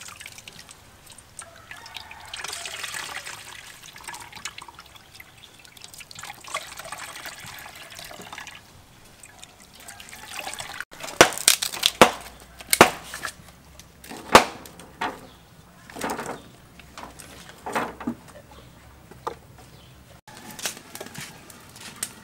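Coconut milk squeezed from grated coconut trickling and dripping through a metal sieve into a pot. About eleven seconds in, this gives way to a series of loud, sharp wooden cracks and knocks as firewood is broken and fed into a barrel stove fire.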